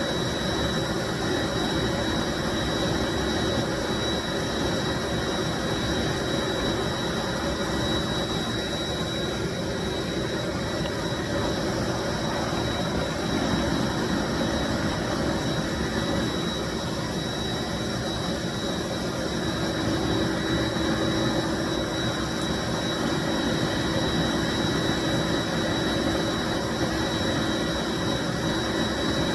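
1995 Bissell SC deep cleaning machine running steadily: a constant rushing motor noise with a thin high whine and a low hum.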